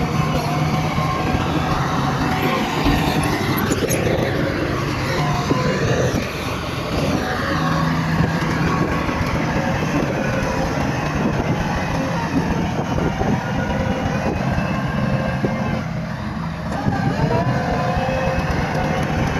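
Bulldozer's diesel engine running under load, its pitch rising and falling as it works, with a brief drop in level about six seconds in and again near the end.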